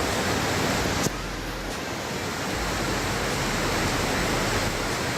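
Steady rush of a waterfall's falling water, with one sharp click about a second in.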